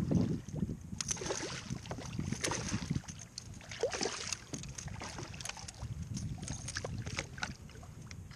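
Irregular short splashes and slaps of water as a hooked redfish thrashes at the surface beside a kayak while a landing net is pushed into the water to scoop it.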